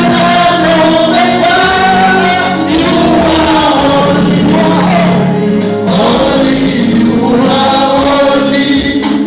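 Gospel choir singing, several voices holding long sustained notes together.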